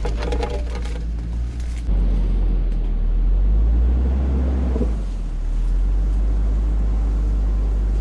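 Pickup truck's engine running low and its tyres rolling over a rough dirt forest road as it backs slowly out, a steady low rumble that grows louder about two seconds in.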